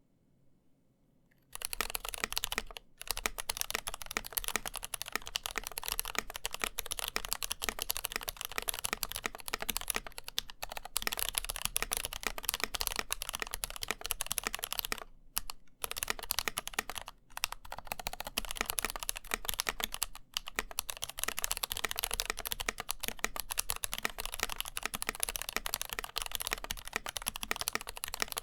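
Fast typing on a mechanical keyboard with factory-lubed, unmodified Gateron CAP Milky Yellow linear switches in an NK65 Entry, a dense run of keystrokes that starts about a second and a half in and pauses briefly a couple of times.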